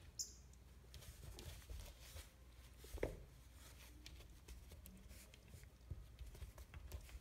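Near silence with faint taps and scratches of a Bichon Frise puppy's paws against a glass door, and one short, louder knock about three seconds in.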